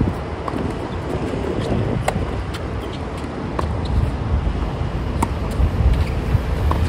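Tennis rally on a hard court: sharp pops of racket strikes and ball bounces roughly every second and a half, the loudest about two and five seconds in, over a steady low rumble.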